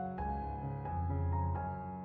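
Slow background music played on a keyboard: sustained low notes under a melody that moves to a new note every half second or so.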